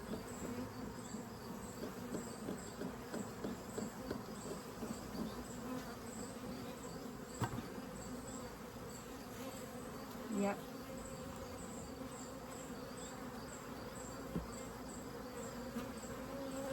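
Honeybee colony in an opened Layens horizontal hive buzzing steadily: lots of hive noise, a colony that is a little defensive.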